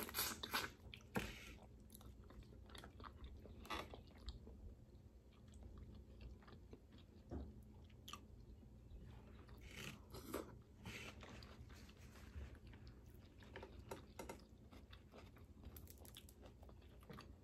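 Faint, close-miked eating of crawfish: shells cracking and peeling, and chewing, heard as irregular clicks and crunches.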